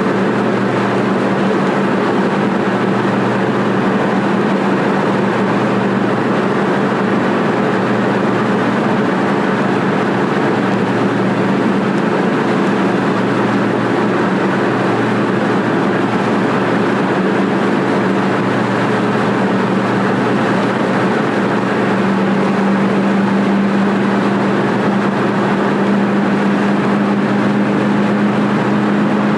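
Car driving at freeway speed, heard from inside the cabin: steady tyre, wind and engine noise with a low hum that grows a little stronger near the end.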